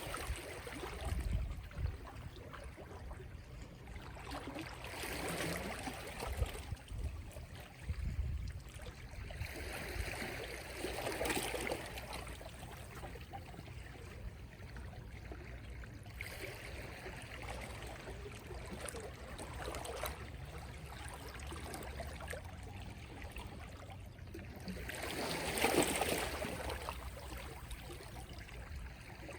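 Small, gentle sea waves washing onto the shore, each one swelling and then easing off every few seconds, the loudest a little before the end.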